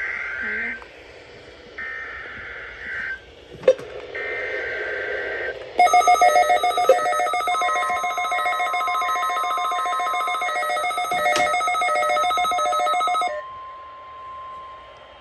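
NOAA Weather Radio alert signal: three SAME header data bursts, each about a second long, followed by a weather alert receiver's loud pulsing electronic alarm that sounds for about seven seconds and cuts off suddenly. Under the alarm runs the broadcast's steady 1050 Hz warning-alarm tone, which continues after the receiver falls silent and marks a weekly test of the warning alarm.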